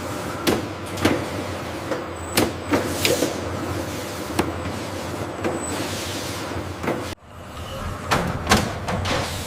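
Irregular sharp clicks and knocks from things being handled, over a steady low hum. The background cuts off abruptly about seven seconds in, then the clicks resume.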